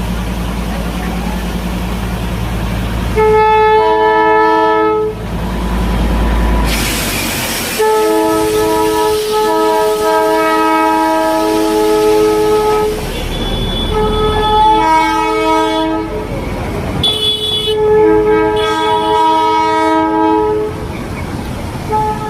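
Darjeeling Himalayan Railway toy train sounding its horn in four long, steady two-note blasts, the second lasting about five seconds, over the rumble of the running train. A short burst of hiss comes between the first and second blasts.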